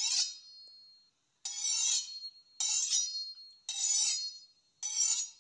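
An intro sound effect of short, bright, ringing clinks or swipes, repeated five times about a second apart, each with a brief high ring.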